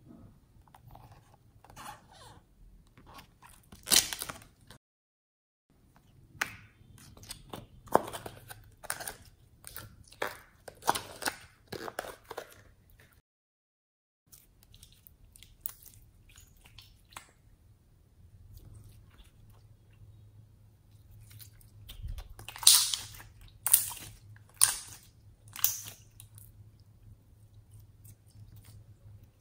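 Slime being squished, pressed and folded by hand, putty slime worked into store-bought slime, giving sharp wet clicks and pops in clusters with pauses between; the loudest run of pops comes near the end.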